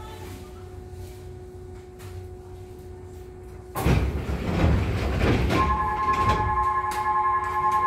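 Sliding passenger doors of a Nishitetsu 600 series train car opening at a station stop: a sudden loud rush of noise about four seconds in, lasting about two seconds, after a steady hum from the standing car. As the doors finish opening, a steady electronic tone of several pitches starts and keeps sounding.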